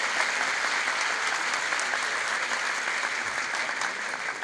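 Spectators applauding in a sports hall: a dense patter of many hands clapping, beginning to thin out near the end.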